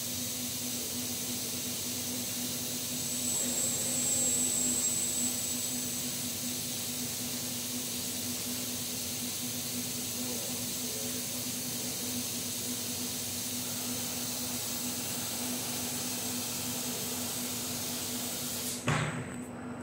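Steady hiss with a low hum from a running industrial robot work cell. Near the end there is a knock, and the hiss stops suddenly.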